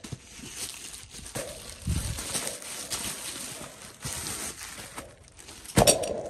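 Plastic shipping mailer bag rustling and crinkling as it is opened by hand, with a sudden, louder sound near the end.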